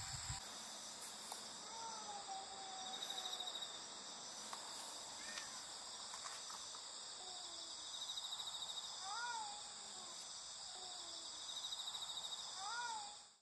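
Insects singing in a steady high-pitched chorus, with a louder pulsing trill coming in three times. A few faint short calls rise and fall in pitch now and then.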